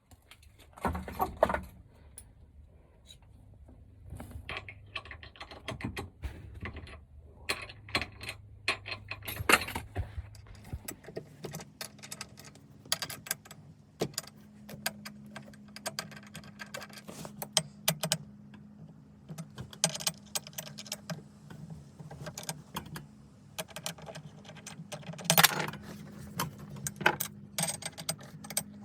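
Metal tools and car parts clinking and clattering while a shift box is being fitted: many scattered sharp clicks and knocks. A steady low hum comes in about a third of the way through.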